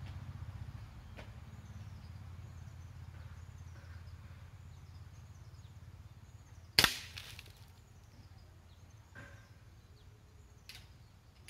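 A single sharp, loud crack about two-thirds of the way through, with a short ringing tail: a .22 air rifle shot from about 15 m away and the pellet striking the wooden plank target, heard as one report. A few faint ticks come before and after it.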